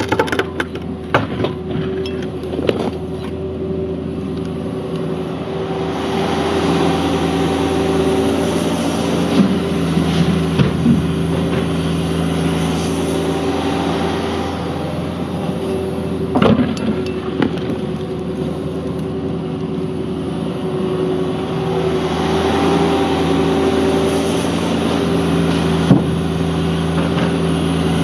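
Cat 305.5E2 mini excavator's diesel engine running under hydraulic load while digging gravel, its steady tone swelling and easing as the arm and bucket work. Scattered knocks and scrapes of the steel bucket against gravel and rocks.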